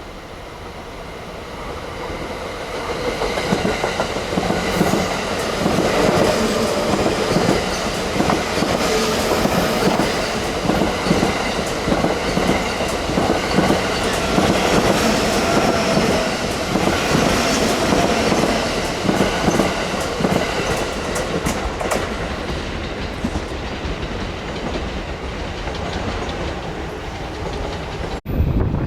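A train running past close by: it grows louder over the first few seconds, then its wheels clatter in a steady run over the rail joints. The sound breaks off abruptly near the end.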